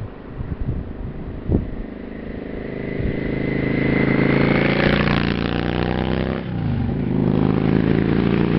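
Custom Yamaha XVS650 bobber's air-cooled V-twin approaching and passing close by, the engine note building steadily, dropping in pitch about six and a half seconds in, then loud again near the end.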